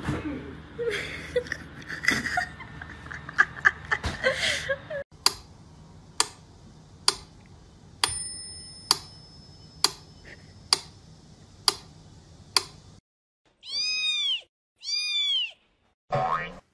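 A metronome ticking steadily, about one sharp click a second, for several seconds. Then a cat gives two clear, arching meows, one a second after the other. Before the ticking there is a jumble of louder mixed noises.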